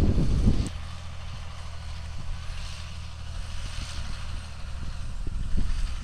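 Wind buffeting the microphone for the first moment, then the steady drone of a John Deere 7830 tractor's diesel engine working across the field with a Strom Terraland subsoiler, swelling slightly near the end.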